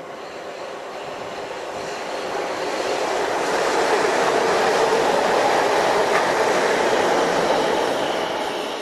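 A South West Trains electric multiple unit passing at speed, the rush of its wheels on the rails growing louder to a peak in the middle and fading near the end.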